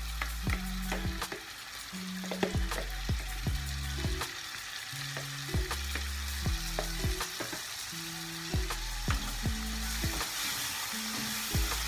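Chicken and onions sizzling steadily in a nonstick frying pan as a yogurt and lemon marinade is scraped in from a plastic bowl with a spatula and stirred through. Sharp spatula taps against the bowl and pan come about once or twice a second.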